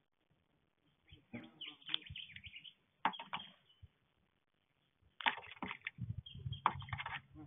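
Sacred kingfisher diving into a water trough: splashes and wing flutters in three short clusters with quiet gaps, mixed with bird chirps.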